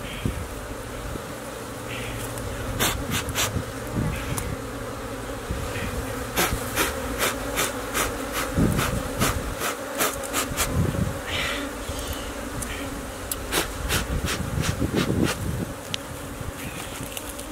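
A swarm of bees buzzing in a steady, many-toned hum around their wild honeycomb nest as it is broken open. Frequent sharp clicks and cracks sound over the hum, thickest in the middle.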